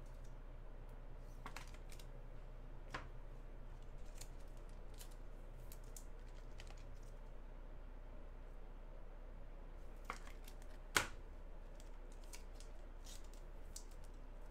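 Trading cards being handled on a table: scattered light clicks and rustles, with one sharper click about eleven seconds in, over a low steady hum.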